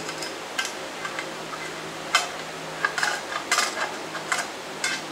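Small metallic clicks and clinks of aluminium rail extrusions and their bolt and T-nut hardware being handled on a worktable, a handful of sharp taps, most of them in the second half.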